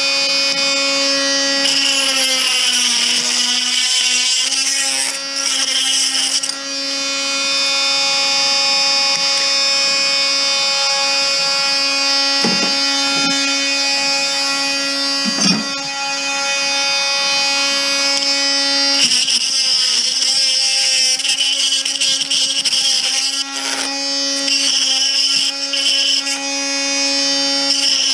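Small handheld power tool's electric motor running steadily with a high whine, its pitch sagging briefly a couple of seconds in as it takes load, with stretches of scraping noise as it works chips and components off circuit boards and a couple of short knocks near the middle.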